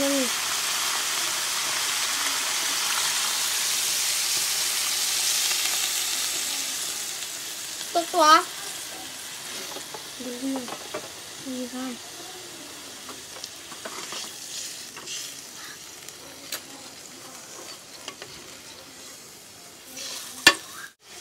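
Metal spoon stirring and scraping food in a metal pot, with short clicks and knocks, and a sharp knock near the end. A steady hiss fades out after about seven seconds, and a few brief murmurs come in between.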